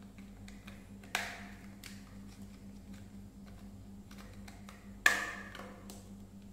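Hard plastic of a toy robot being handled: faint scattered clicks, with two sharp plastic clacks about four seconds apart, each ringing briefly.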